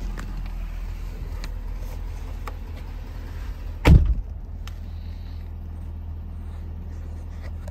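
A Ford F550 truck's engine idles steadily, heard from inside the cab as a low hum. About four seconds in there is a single loud thump.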